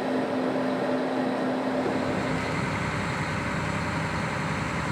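Potato harvester running: a steady engine and machinery drone. About two seconds in, the sound shifts to a deeper low rumble.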